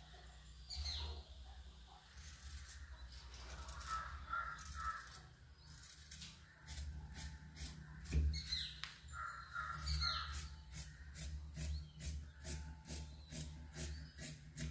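Fabric scissors snipping through cotton cloth in a steady run of short cuts, about three a second, through the second half. Birds chirp and call in the background.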